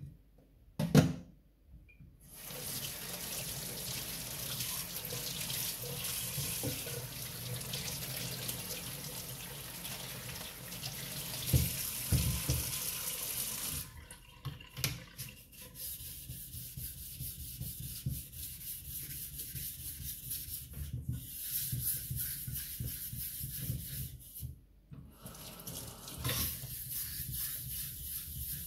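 Water running from a kitchen mixer tap into a stainless steel sink, wetting a whetstone, after a sharp knock about a second in; the flow drops off about 14 seconds in. Near the end a dark block is rubbed back and forth over the wet whetstone.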